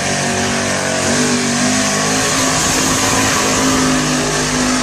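Lifted Ford Bronco mud truck's engine held at high revs while it runs through the mud pit, its paddle tires churning and throwing mud. The engine pitch climbs during the first second, then holds high and steady.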